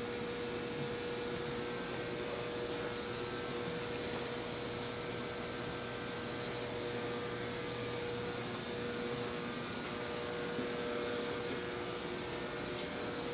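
Steady machine hum: an even hiss with a constant mid-pitched tone underneath, unchanging.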